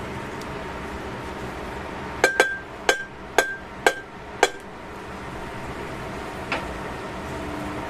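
A wooden spatula knocked against a stainless steel pan, about six sharp taps roughly two a second, each with a short metallic ring. One fainter tap follows near the end.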